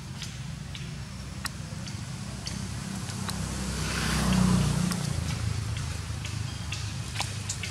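A motor vehicle passes at a distance: a low rumble that swells to its loudest about four and a half seconds in, then fades back to a steady drone. Faint sharp clicks are scattered throughout.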